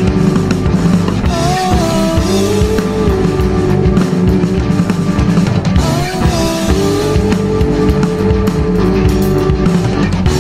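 Indie rock music with drum kit, bass and guitar, and a lead melody line that slides in pitch twice.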